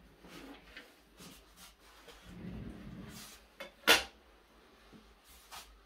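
Quiet handling on an MDF board, with one sharp clack about four seconds in as a stainless steel ruler is laid down on it.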